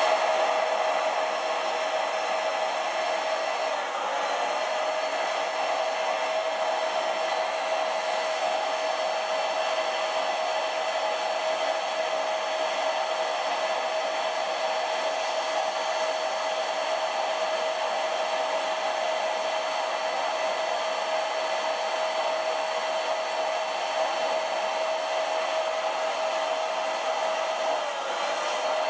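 Electric air pump running steadily with a constant motor whine as it inflates a large vinyl beach ball. Its pitch sags briefly about four seconds in and again near the end.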